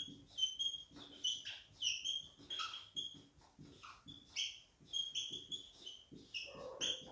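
Marker squeaking on a whiteboard while words are written: a quick, irregular series of short, high squeaks with soft taps between them.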